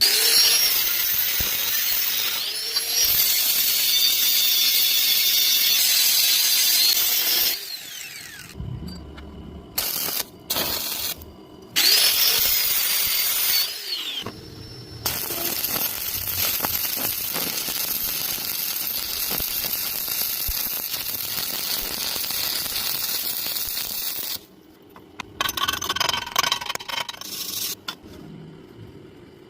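A power tool running in several stretches, loud and harsh with high squealing, stopping and starting briefly in the middle and going quieter near the end.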